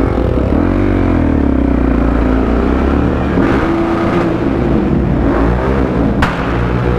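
Supermoto motorcycle engine being ridden, its revs rising and falling with the throttle. A single sharp click or knock about six seconds in.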